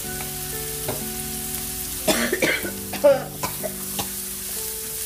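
Chopped vegetables sizzling in hot chili oil in a wok, stirred with a wooden spatula that ticks against the pan now and then. Someone coughs twice, about two and three seconds in, from the chili fumes.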